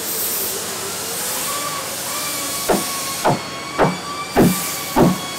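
Steady workshop hiss, then hammering starts about halfway in: five even blows a little over half a second apart.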